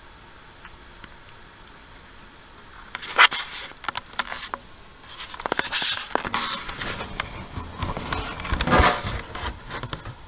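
Close handling noise at the microphone: after a few seconds of steady hiss, a run of irregular clicks, scrapes and rustles begins about three seconds in, as the camera is adjusted by hand.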